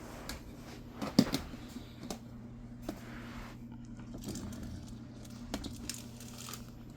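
Handling noise of toys being picked up and moved: a few light clicks and knocks, the loudest about a second in, over a steady low hum.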